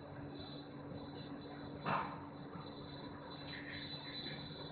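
A steady, high 4 kHz test tone from a function generator, with a fainter overtone an octave above. A brief knock comes about two seconds in.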